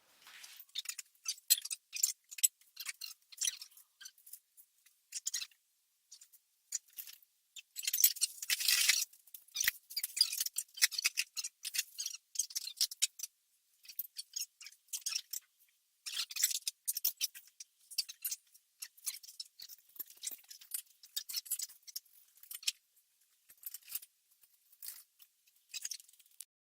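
Hands handling small metal hardware and parts during a workshop assembly job: irregular sharp clicks and rattles, densest about eight seconds in and again around sixteen seconds.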